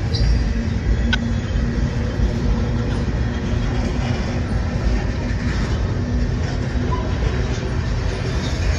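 Freight train's boxcars and tank cars rolling past, a steady rumble of steel wheels on the rails.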